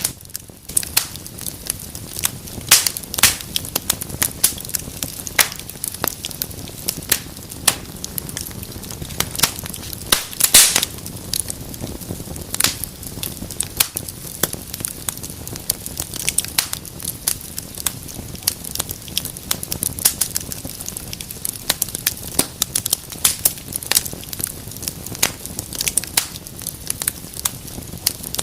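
Wood fire in a fireplace crackling: a steady low rush of flame with frequent irregular sharp pops and snaps, a few louder ones around the middle.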